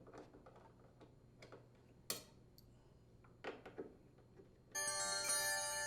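Faint, irregular metallic clicks and ticks as the door hinge mounting screws are unthreaded with a T25 Torx bit, one sharper click about two seconds in. Soft background music comes in near the end.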